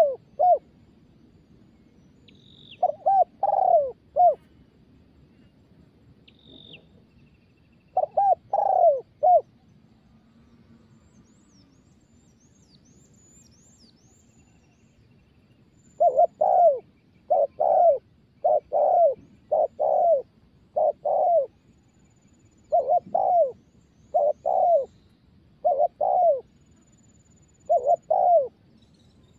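Spotted dove cooing in short groups of two or three notes, then a long run of coos about once a second through the second half. Faint high chirps of small birds come in near the middle.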